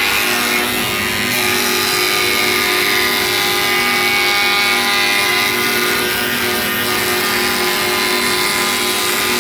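WoodMizer MP360 planer/moulder running steadily alongside its diesel generator: a loud, unbroken machine sound made of several steady tones.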